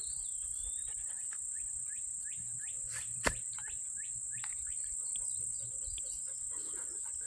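Steady, high-pitched chorus of insects in summer woodland, running without a break. A short high sliding note sounds near the start, and a single sharp click about three seconds in.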